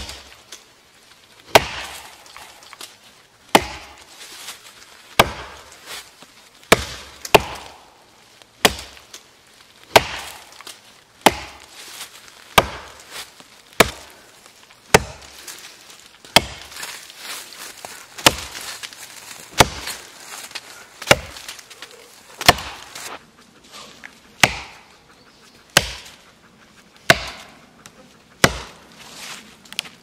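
Axe chopping into a standing tree trunk: about twenty sharp blows at a steady pace, roughly one every second and a half, each a crisp bite into the wood.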